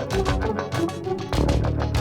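Music with a steady beat, a bass line and a pitched melody.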